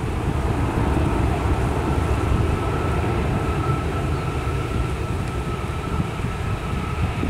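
Airbus airliner's jet engines rumbling as it rolls out down the runway after touchdown, with a faint steady whine that sinks slightly in pitch.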